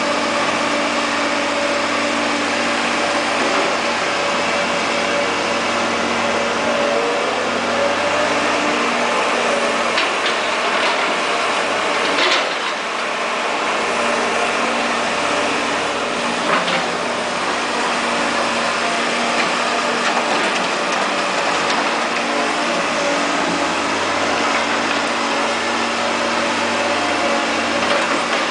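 Caterpillar E240B excavator's diesel engine running steadily, with two sharp knocks, about twelve and sixteen seconds in.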